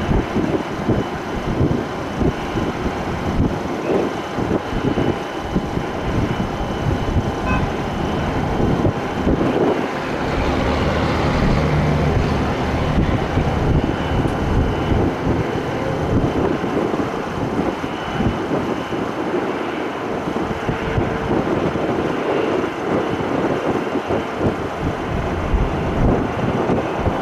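Jet airliner engines running with a steady rumble that swells slightly about ten seconds in, with wind buffeting the microphone.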